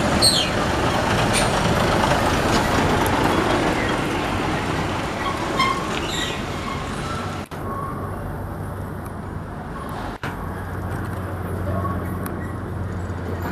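Heavy diesel trucks driving past on a winding road, engines and tyres loud and dense in the first half, then a lower, steadier engine drone. The sound cuts out sharply twice, about halfway through and again a few seconds later.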